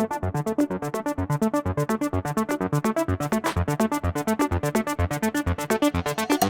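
Background electronic music: a fast, even pulse of short synthesizer notes with a steady beat, building up.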